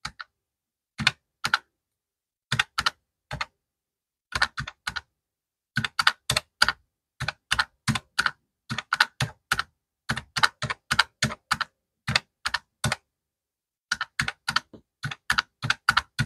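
Keys of a round-keyed desktop calculator tapped to enter a column of figures: sharp plastic clicks, singly and in quick irregular runs of two to four, with short gaps between.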